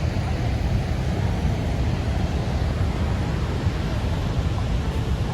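Niagara Falls' steady deep roar of falling water, heaviest in the low rumble.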